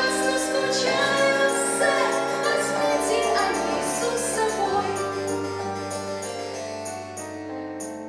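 A girl singing a song from a stage musical into a microphone over instrumental accompaniment; the music grows quieter and dies away near the end.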